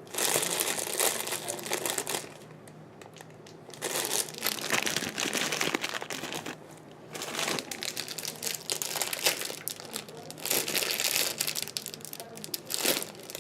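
Crinkling, rustling handling noise in four bursts, with short pauses between them.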